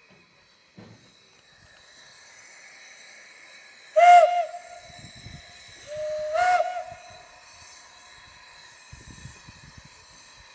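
Steam whistle of the Mh.1 narrow-gauge steam locomotive giving two blasts as the train sets off: a short loud one about four seconds in, then a longer one that starts a little lower and rises to the same pitch. A steady steam hiss runs underneath.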